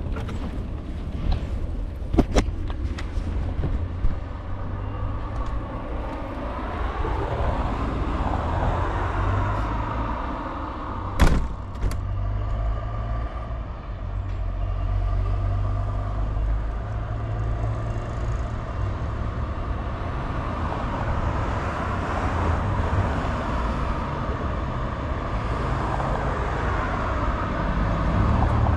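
Riding a Super Soco TC Max electric motorcycle: a steady low rumble of wind buffeting the action camera's microphone, with road noise, and a faint whine that rises and falls twice. A sharp knock about eleven seconds in.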